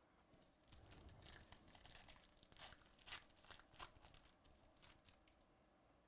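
Foil wrapper of a Panini Spectra football card pack being torn open by hand: faint crinkling and tearing, with a few sharper rips about two and a half to four seconds in.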